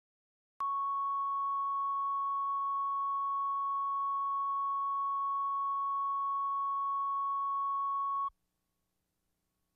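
Steady reference tone of about 1 kHz, the line-up tone recorded with colour bars on a videotape leader for setting audio levels. It starts suddenly about half a second in and cuts off about 8 seconds in.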